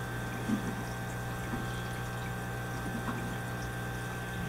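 Steady low hum of aquarium pumps with a constant wash of running water.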